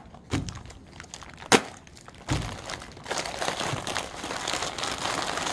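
Heavy plastic MRE outer bag crinkling as it is handled and its contents are pulled out. There is a sharp snap about a second and a half in.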